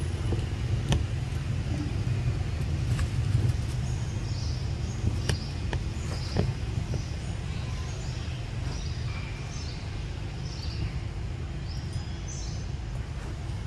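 Outdoor ambience: a steady low rumble with a few sharp clicks, and birds chirping in short calls through the middle and near the end.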